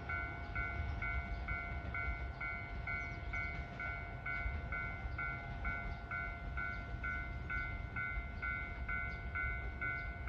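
Electronic level crossing alarm ringing steadily, two tones struck together a little over twice a second, warning of an approaching train, over a low rumble.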